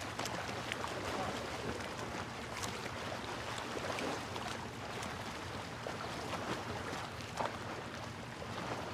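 Wind on the microphone and water splashing and washing around a small sailboat's hull in choppy waves, a steady rush with scattered small splashes and clicks.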